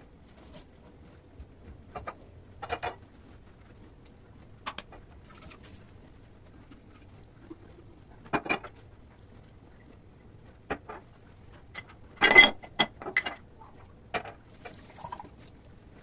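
Glass storage jars and their metal lids being handled at a steel kitchen sink and set down on a stone countertop: scattered clinks and knocks at uneven intervals, the loudest a quick cluster about three-quarters of the way through.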